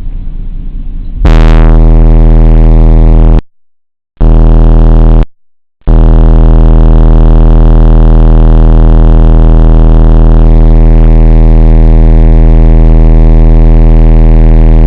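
Audiopipe TXX-BF15 car subwoofers playing a loud 40 Hz test tone, a buzzy low drone. It starts about a second in, cuts out twice briefly, then holds steady.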